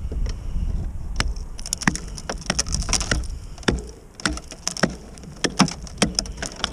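Hatchet chopping a hole in thin lake ice, about two inches thick, beside a kayak: repeated sharp cracking strikes, two or three a second, with the ice splintering.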